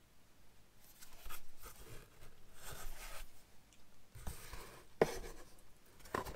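Rustling and scraping of packaging being handled during unboxing, with a couple of knocks, the sharpest about five seconds in.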